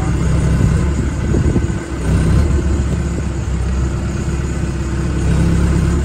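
John Deere 410J loader backhoe's diesel engine running, heard from the cab, its sound steady apart from a brief dip about two seconds in.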